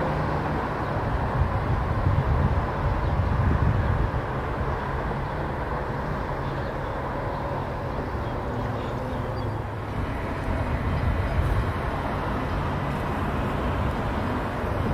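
Steady low outdoor rumble with a hiss above it and no distinct single event; its character shifts slightly about ten seconds in.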